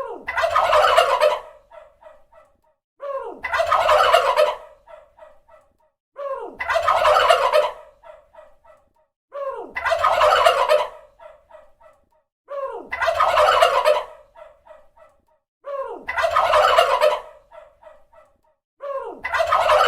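Turkey gobbling, the same gobble repeated about every three seconds, six times over. Each starts with a short falling note, runs into a rapid gobble about a second and a half long, and trails off in a few fainter notes.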